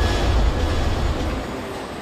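Deep steady rumble with an even hiss over it in a car-assembly hall, dropping away about three quarters of the way through.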